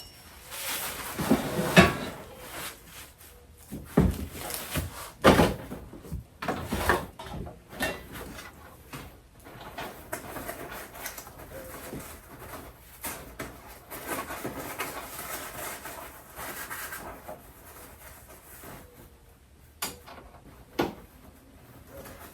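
Parts of an animatronic Halloween prop being handled and fitted: irregular knocks and clicks with rustling and scraping in between.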